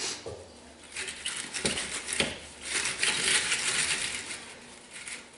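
Scraping and knocking at a Loegering Trailblazer over-the-tire steel track as packed mud is cleaned out of it, with a few sharp metallic clinks.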